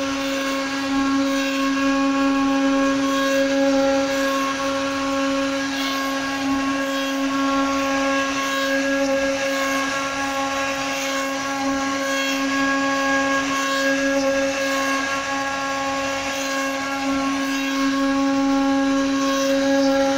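CNC wood router's high-speed spindle motor running with a steady whine, a rougher hiss layered above it.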